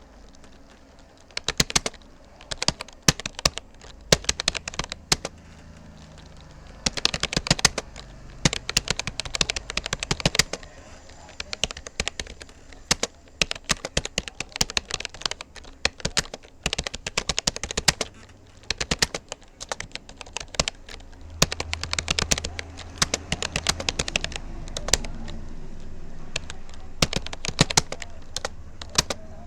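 Typing on a Rapoo computer keyboard: fast runs of key clicks broken by short pauses. A low rumble lies underneath and grows louder in the last third.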